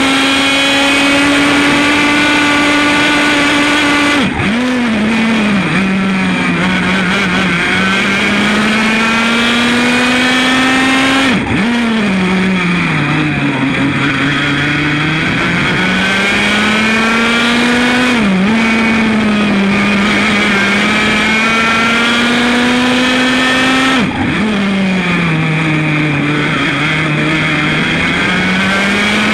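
100cc Formula A racing kart's two-stroke engine running hard at high revs, its pitch falling sharply four times as the throttle is lifted and then climbing back up under power.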